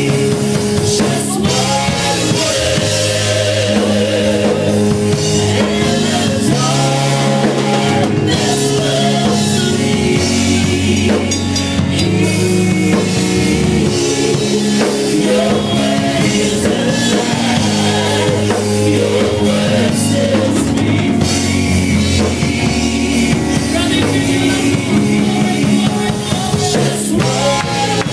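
Live church praise music: several singers holding long, wavering notes over keyboard and a drum kit.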